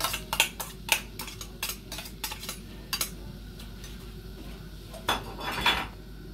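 Glass container and stainless steel saucepan clinking as chopped onion is tipped and knocked into the pan: a quick run of sharp clinks, about three or four a second, over the first three seconds. A short, louder clatter follows near the end.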